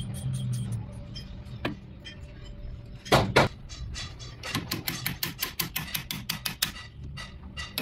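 Metal hammer-and-punch work on a Suzuki Ravi steering box's top cover ring: a couple of heavier knocks about three seconds in, then a run of light, quick metal taps, about five a second, as the ring is tapped round.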